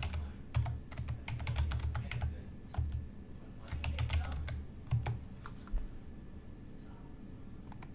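Typing on a computer keyboard: quick, irregular runs of keystroke clicks that stop after about five seconds.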